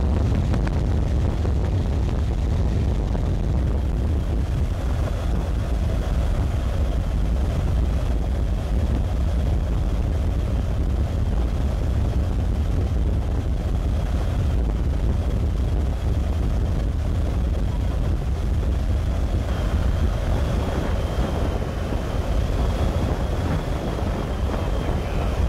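Storm wind buffeting the microphone: a steady, loud low rumble with an irregular flutter. A faint thin high tone comes in about twenty seconds in.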